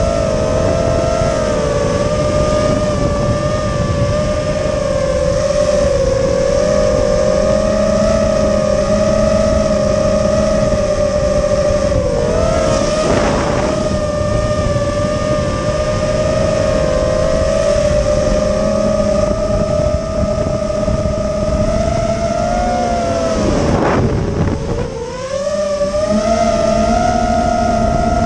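FPV quadcopter's brushless motors and propellers whining steadily at one pitch, with wind noise on the onboard microphone. The pitch dips and climbs again about halfway through and once more near the end, as the throttle is eased off and pushed back up.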